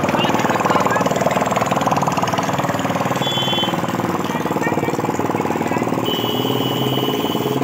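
A large diesel truck engine running close by with a dense, rapid, steady chugging. A high-pitched electronic tone sounds briefly a few seconds in, then comes back and holds steady near the end.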